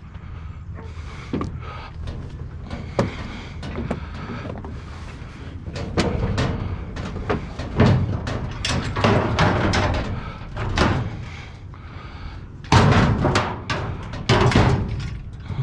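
A lawnmower being wrestled and shoved into the back of a vehicle: repeated clanks, knocks and scraping over a steady low rumble, with a cluster of loud bangs near the end.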